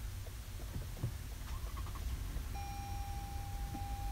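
Cabin of a 2016 Lexus RX 350 at push-button start-up: a low steady rumble and a few faint clicks, then a steady electronic tone begins about two and a half seconds in and holds on.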